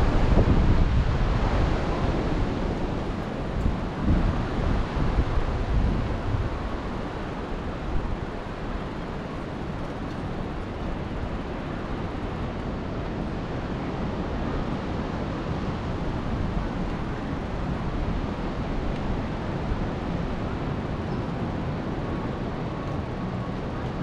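Wind buffeting the microphone: heavy low rumbling gusts for the first several seconds, then easing into a steadier rush of wind.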